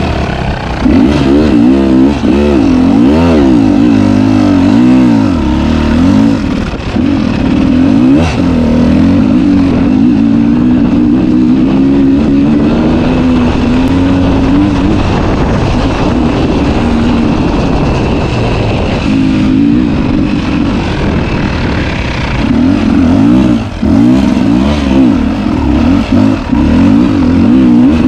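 Two-stroke dirt bike engine revving up and down again and again, its pitch rising and falling as the throttle is worked. It runs softer for a few seconds around the middle, then picks up hard again.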